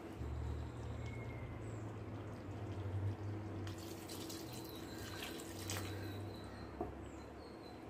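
Water poured from a steel tumbler into a kadai of thick curry, splashing into the gravy about halfway through, after a wooden spatula stirs the pot. A steady low hum sounds under it.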